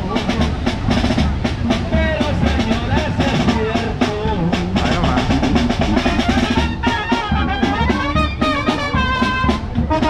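A Sinaloan-style banda playing live: tuba and brass carrying the tune over a steady drum beat.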